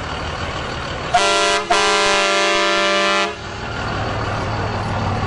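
Vehicle horn sounding twice, a short blast and then a longer one of about a second and a half, over low steady traffic rumble.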